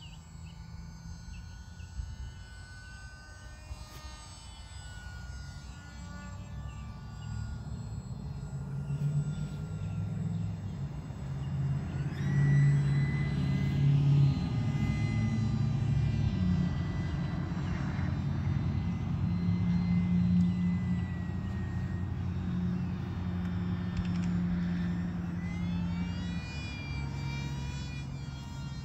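Electric motor and propeller of a Delta Ray One RC airplane droning in flight overhead, with a thin whine that drifts in pitch. It grows louder toward the middle as the plane passes closer.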